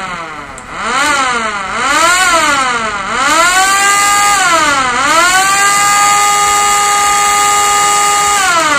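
Homemade 12 V siren, a 775 DC motor spinning a rotor inside a slotted PVC pipe housing, wailing very loudly. Its pitch rises and falls four times, then climbs to a steady high note that holds for about three seconds and falls away near the end.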